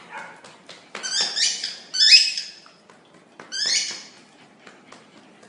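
A puppy squealing in three high-pitched cries, each under a second long, with faint clicks before them.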